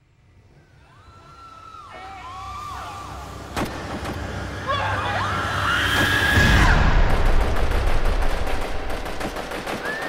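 Battle sound effects fading in from silence and swelling: a deep rumble, sharp gunshot cracks, and long rising-and-falling cries, with rapid gunfire in the last few seconds.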